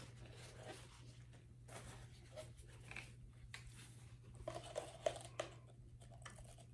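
Faint rustling and light taps of latex-gloved hands handling a plastic paint cup and paint bottles, over a low steady hum.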